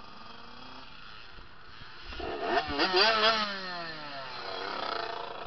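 Dirt bike engine revving hard from about two seconds in, its pitch jumping up and down several times, then sliding steadily lower.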